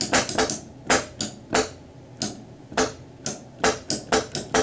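Homemade quick-exhaust-valve (QEV) pneumatic multishot rifle firing rapid sharp blasts of compressed air, with no projectile loaded. About fifteen shots come at uneven spacing, faster toward the end.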